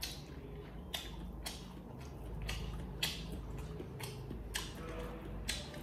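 Chopsticks stirring and lifting stir-fried instant noodles: soft, irregular clicks, about two a second, with faint wet squishes of the noodles.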